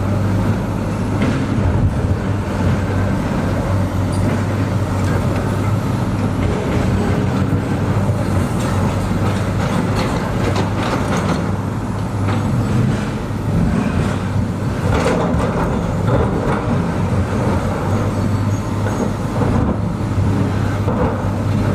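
Heavy construction machinery's diesel engine running steadily with a low hum, with occasional metallic clanks and knocks.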